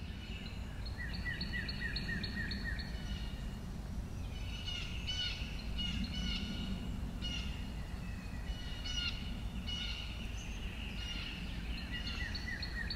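Songbirds chirping in repeated runs of short, quick notes, over a steady low outdoor rumble.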